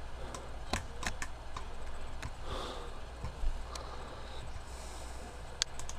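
Scattered sharp clicks of a computer mouse and keyboard, a few at a time, over a steady low hum, with a soft breath-like rush near the middle.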